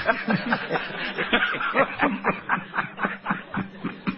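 People laughing: a continuous run of quick, short laughs following a punchline.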